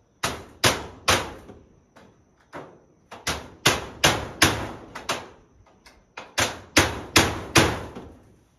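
Hammer driving nails through corrugated metal roofing sheets: sharp, ringing blows in quick runs of three to five strikes, about fifteen in all, with short pauses between the runs.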